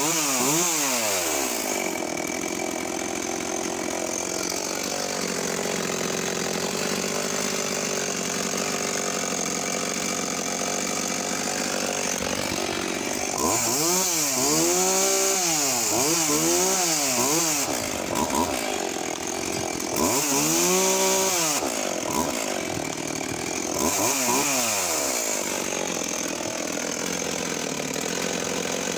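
Tanaka ECV-5501 two-stroke chainsaw, built on Husqvarna 55 engine internals, just restarted, its revs falling to a steady idle in the first couple of seconds. From about 13 seconds on, the throttle is blipped several times, the engine revving up and dropping back to idle each time. It is running smoothly.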